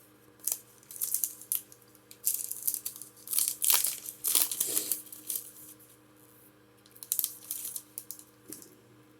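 Foil Pokémon booster pack wrapper crinkling and being torn open, in bursts of rustling for the first few seconds and again briefly about seven seconds in.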